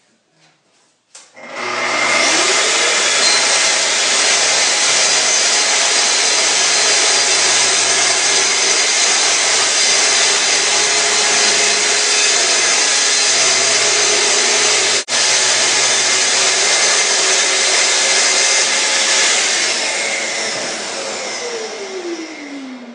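Track saw spinning up about a second in and ripping the length of a full sheet of plywood with a steady, loud cutting noise, then winding down with a falling pitch near the end.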